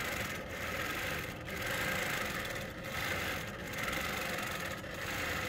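Innova longarm quilting machine, with its Lightning Stitch servo-motor stitch regulator, running and stitching steadily through the quilt: a steady mechanical hum that dips briefly a few times.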